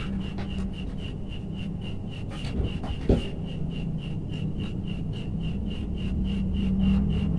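Hands handling electrical wire and combination pliers: soft rubbing and handling noise with a sharp click about three seconds in. Under it runs a steady high-pitched ticking, about four ticks a second, and a low hum.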